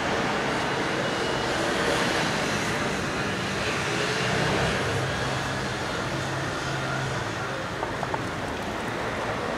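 Steady city traffic noise, with a faint conversation underneath.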